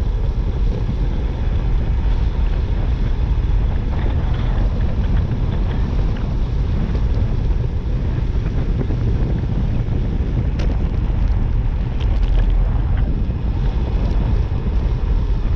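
Wind rushing steadily over the microphone while travelling down a steep road, with a few faint ticks.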